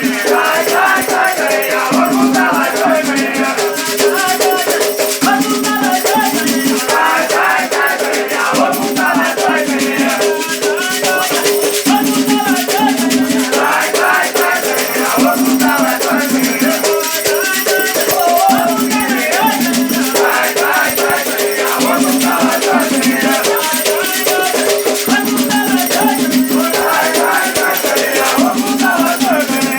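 Rattles shaken in a steady rhythm with voices singing over them: the music of an Afro-Brazilian batuque ceremony.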